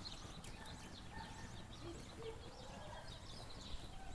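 Small birds chirping in many quick, short, high notes over a faint low background rumble.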